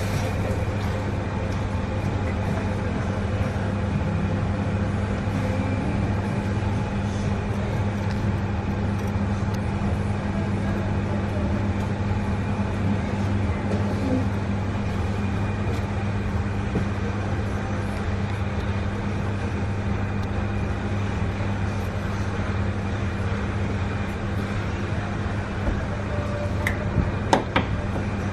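Steady low hum of running kitchen equipment, with a few light clicks near the end.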